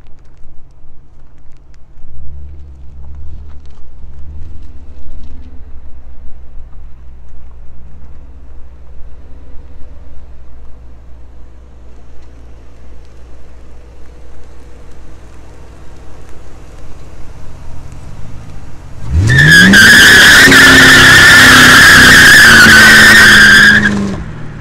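A 1999 Ford Mustang GT's 4.6-litre V8 rumbling with a few light revs. About nineteen seconds in, it revs sharply up and holds high while the tires squeal loudly in a burnout for about five seconds, then the sound cuts off suddenly.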